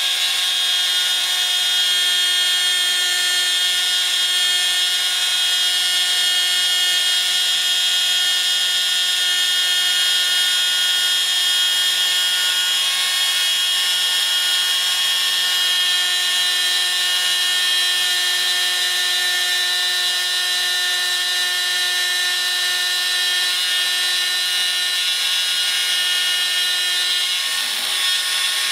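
Proxxon mains-powered rotary drill running steadily in a pantograph engraver, its D-cutter milling nickel silver sheet: a constant high whine with cutting noise.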